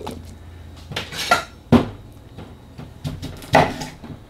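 Kitchen clatter while preparing a stew: about half a dozen separate sharp knocks and clinks of food, crockery and utensils. The loudest comes a little under two seconds in.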